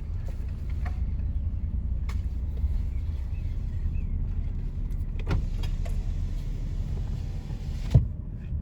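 Car driving along with a steady low rumble, a few light clicks, and a sharp knock about eight seconds in.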